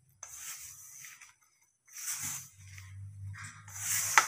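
A hand mixing and squeezing crumbly gram-flour (besan) dough against a stainless-steel bowl: soft rustling, scraping strokes in three spells. A low hum comes in about halfway through, and there is a single sharp tap near the end.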